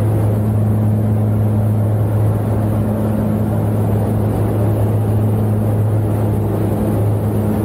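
Steady drone of a jump aircraft's engines heard inside the cabin, a constant low hum with a fainter tone above it, over the rush of air through the open rear ramp.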